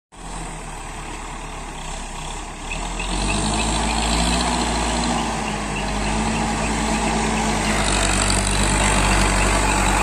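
ACE AX-124 backhoe loader's Kirloskar diesel engine running with a steady low hum, getting louder about three seconds in as the machine works.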